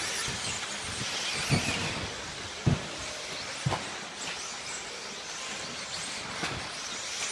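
1/10-scale electric off-road RC buggies racing: high motor whines that rise and fall as they speed up and slow down, over a steady rushing noise, with three dull thumps in the first four seconds.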